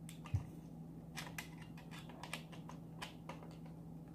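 Faint, irregular small clicks from a screwdriver and the plastic ball-jointed legs of a Joby GorillaPod tripod being handled while a loose flathead screw in it is tightened, with one soft thump about a third of a second in. A low steady hum sits underneath.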